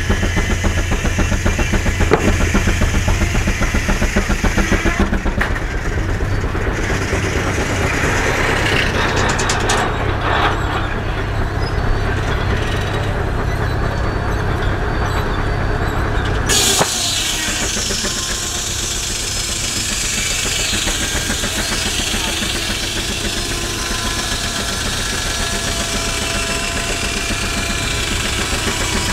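Machinery of a steam-powered portable sawmill running, with a steady low pulsing engine beat. The sound changes abruptly about two-thirds of the way through.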